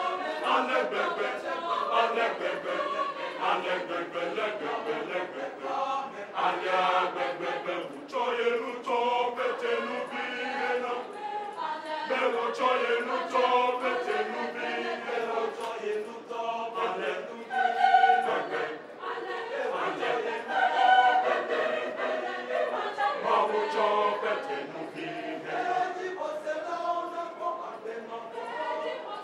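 Mixed choir of women's and men's voices singing together in parts.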